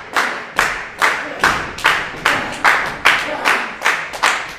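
Crowd clapping in unison, a steady beat of about two and a half claps a second.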